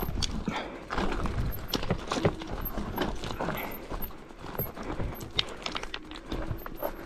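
Irregular footsteps clacking and scraping on rocky ground, a few steps a second.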